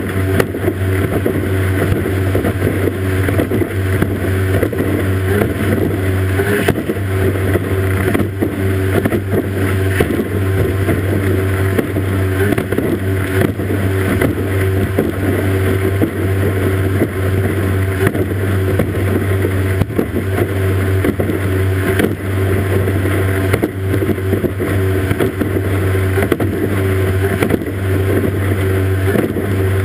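Racing powerboat's outboard motor running flat out at a steady, unchanging pitch, recorded right beside the motor, over a constant rush of spray and water.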